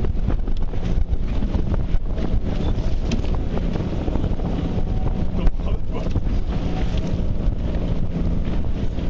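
Wind buffeting the microphone over the steady drone of a boat's outboard motor running under way.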